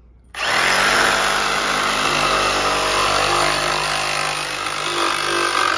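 Milwaukee M18 Fuel Hackzall one-handed reciprocating saw starting up about a third of a second in and cutting through copper pipe, running at a steady speed.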